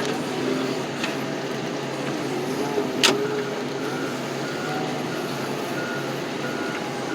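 A heavy vehicle's engine running, with a single sharp clank about three seconds in. Right after it, a backup alarm starts beeping at an even, quick pace.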